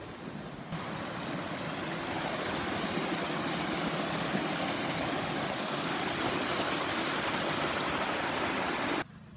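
Creek water rushing and splashing down a small cascade over rocks, a steady full hiss. It comes in sharply under a second in, swells a little, and cuts off abruptly near the end.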